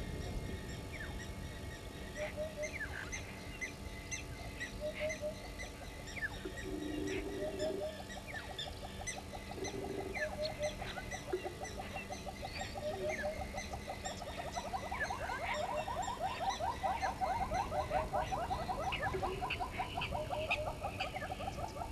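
Natural chorus of wild animal calls: scattered short high chirps and repeated short paired lower calls, with a fast rattling trill that starts faintly about a third of the way in and grows loud in the second half.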